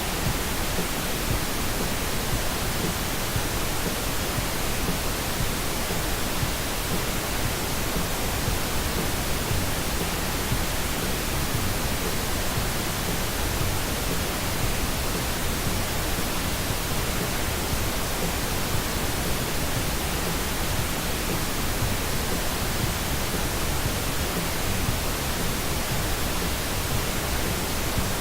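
Steady, unchanging hiss of synthetic broadband test noise, spread evenly from deep rumble to high hiss.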